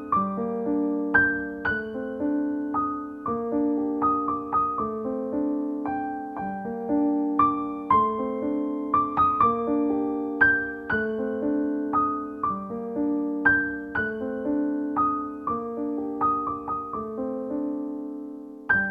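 Background piano music: a gentle melody of single struck notes over repeating low notes.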